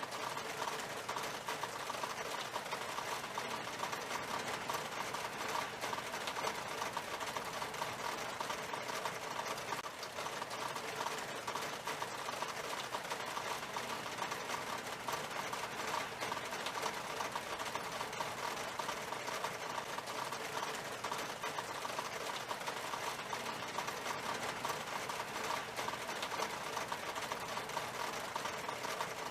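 Rain falling on window glass: a steady, dense patter of small drop taps that does not let up.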